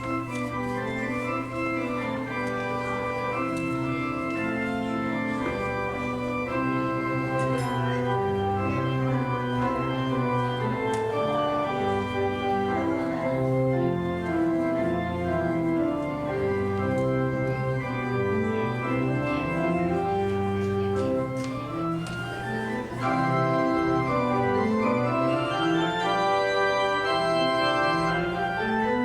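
Church organ playing a piece of music with chords moving over sustained bass notes; it grows louder about 23 seconds in.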